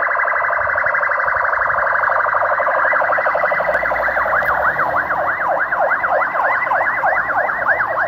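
Electronic police siren sounding loudly, first as a very fast warble, then about three seconds in changing to a slower yelp that sweeps up and down about four times a second.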